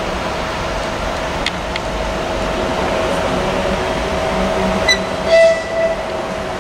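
A ČD class 380 electric locomotive running slowly as a light engine, with a steady electric whine. It gives a brief horn toot about five seconds in.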